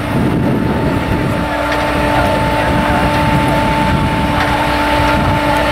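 Altec utility bucket truck's engine and boom hydraulics running: a steady drone with a steady high whine over it.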